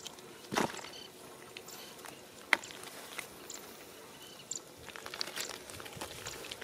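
Scattered wet clicks and crackles of small fish being handled in mud, with one sharp click about two and a half seconds in, then denser crackling as fish drop into a plastic bucket and flop against the other fish.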